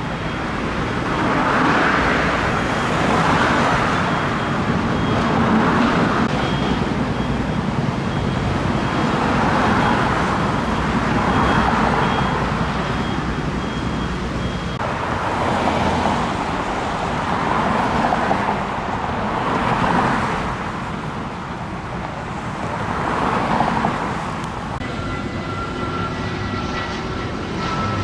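Road traffic: cars passing one after another, each swelling up and fading away.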